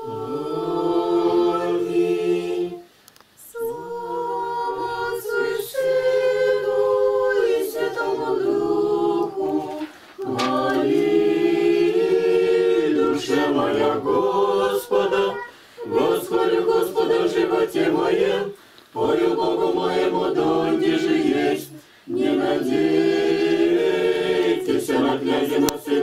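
A church congregation singing an Orthodox liturgical chant a cappella, in unaccompanied group voices. It comes in phrases a few seconds long with short breaks for breath between them.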